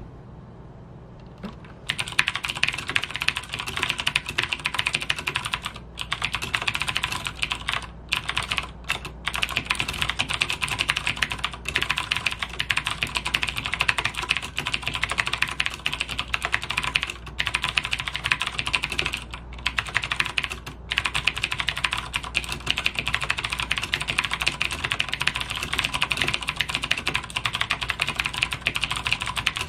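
Logitech G610 mechanical keyboard with Cherry MX Blue clicky switches typed on fast, recorded close-up: a dense stream of crisp keystroke clicks that starts about two seconds in, broken by a few brief pauses.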